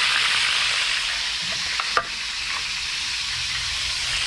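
Whole tilapia frying in hot oil in a nonstick frying pan, a steady sizzle, with one sharp knock about two seconds in.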